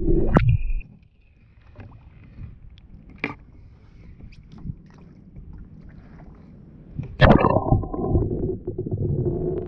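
Water sloshing around a snorkeller's camera: a low muffled underwater rumble that cuts off about a second in as the camera comes up to the surface, a few quiet drips and clicks, then a loud splash about seven seconds in as it goes back under and the underwater rumble returns.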